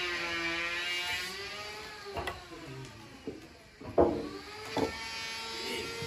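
Sawmill machinery's electric motor whining, its pitch sagging and rising, while wooden knocks sound as workers lever a large trembesi log onto the band sawmill carriage; the loudest knock comes about four seconds in, with smaller ones around two seconds and just under five seconds in.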